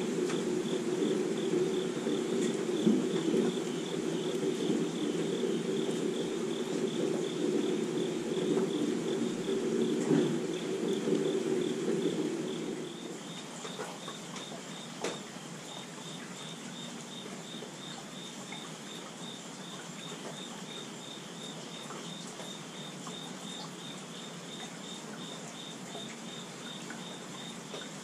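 Steady rainfall, with insects chirping in a high, fast, even pulse throughout. About 13 seconds in, the deeper rain sound drops away and leaves a softer rain hiss under the insects, with a single tap a couple of seconds later.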